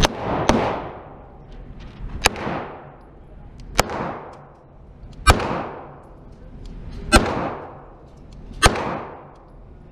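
Six single 9mm shots from a Glock 22 Gen4 pistol converted to 9mm, fired slowly about one and a half seconds apart. Each shot is followed by a long echo ringing off the walls of the indoor range.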